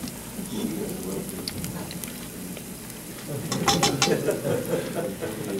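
Battered fish deep-frying in hot oil in a fryer basket, sizzling steadily with scattered crackles. The frying gets louder a little past the halfway point, with a quick run of sharp crackles.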